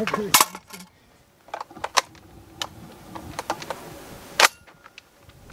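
Scattered sharp clicks and knocks from handling a bullpup shotgun, with one much louder sharp crack about four and a half seconds in.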